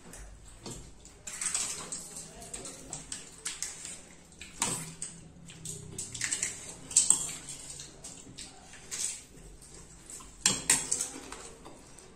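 Steel spoons clinking and scraping against steel bowls and plates, while hollow puri shells are cracked open, filled and dipped into pani with small splashes. The clatter is irregular, with a few sharper clinks in the second half.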